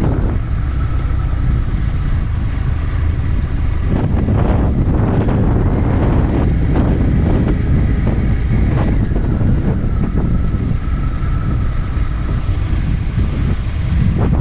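Triumph Tiger 1200's three-cylinder engine running as the motorcycle is ridden, heavily buffeted by wind noise on the bike-mounted camera's microphone, with occasional short knocks.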